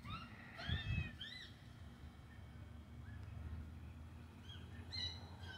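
Birds calling: short arched chirps, a quick cluster in the first second and a half and a few more near the end, over a steady low rumble with a couple of low bumps about a second in.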